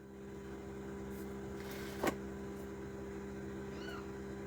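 Steady electrical hum from the amplifier's speaker, made by a Pagaria USB Bluetooth audio board that has no earth connection. There is a single click about two seconds in.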